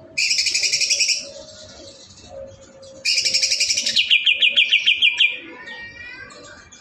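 Songbird singing: a loud, high, rapid trill about a second long, then after a pause a longer burst of rapid notes, about ten a second, that fades into softer, falling notes.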